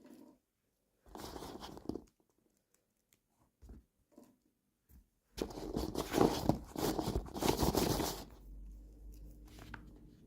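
Toy packaging being torn open and crinkled by hand: a short rustle about a second in, a few light ticks, then a longer, louder crinkling rustle for about three seconds. A faint steady hum follows near the end.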